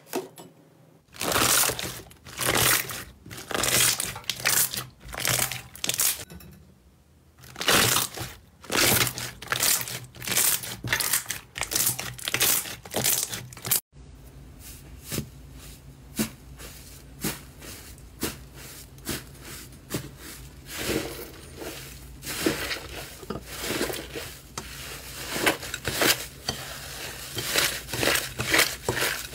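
Hands stretching and pressing clear, bubble-filled slime, giving loud squelching pops in repeated bursts about every half second. Halfway through it cuts to hands kneading crumbly dark-pink slime in a bowl: a quieter, denser run of small clicking squishes.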